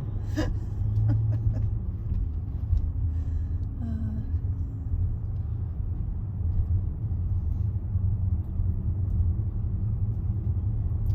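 Steady low road and engine rumble heard inside a Range Rover's cabin as it drives slowly along a street.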